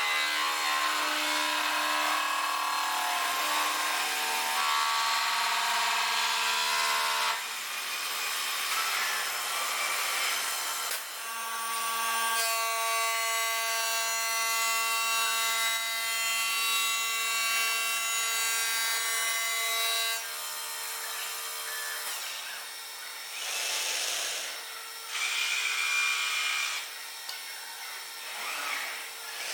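CNC stone-processing machine working stone slab: a steady tool whine over the hiss and rasp of cutting, its pitch and mix changing abruptly several times.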